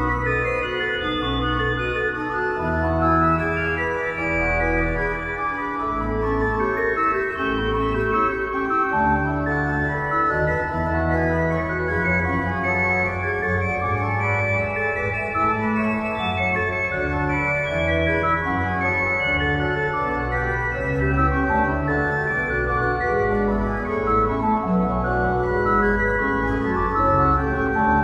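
Church organ playing slow, held chords over a bass line that changes note every second or two.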